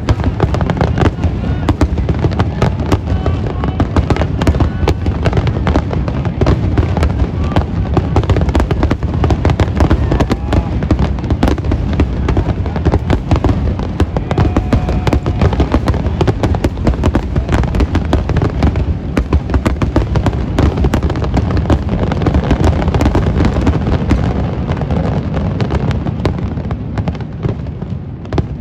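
Aerial fireworks bursting in a dense, continuous barrage of booms and crackles: the closing finale of the display, thinning out and fading over the last few seconds.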